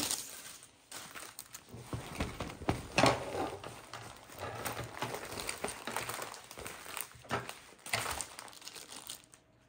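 Plastic wrapping crinkling and a rolled diamond painting canvas rustling as it is handled and unrolled, in irregular rustles, louder about three seconds in.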